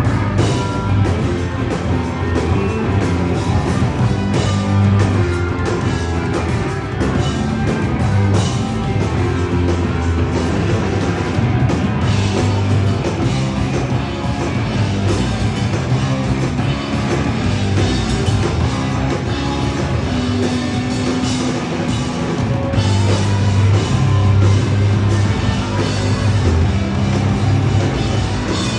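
Live rock band playing a song, with electric guitars and drum kit.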